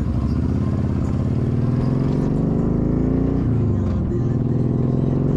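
Motorcycle engine pulling under acceleration, its pitch rising steadily, dropping sharply at an upshift about three and a half seconds in, then climbing again in the next gear.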